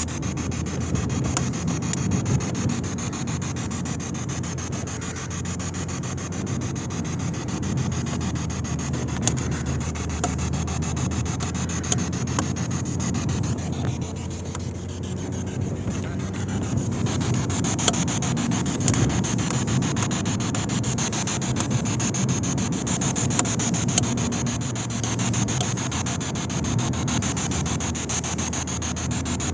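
Camcorder microphone rubbing and scraping against clothing, over a steady low rumble inside a moving car.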